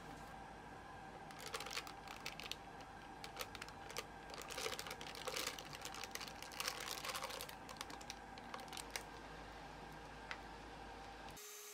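A disposable plastic piping bag crinkling and rustling with quick, light clicks as it is filled with madeleine batter, busiest from about one to seven seconds in, over a faint steady hum.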